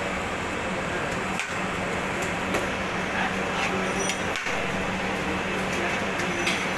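Steady background noise of a busy eatery: a constant mechanical hum under a wash of room and street noise, with a few faint clinks of dishes in the second half.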